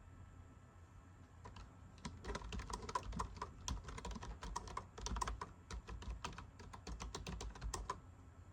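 Typing on a computer keyboard: a fast run of key clicks starts about a second and a half in and stops near the end.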